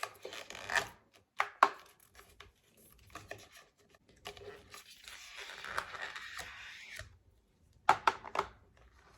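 Packaging being torn open and crinkled while unwrapping a watch band, in two longer rustling stretches with a few sharp clicks and taps between them.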